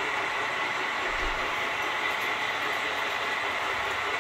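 Model trains running on a layout: a steady rolling rumble of wheels on track with a steady high tone over it.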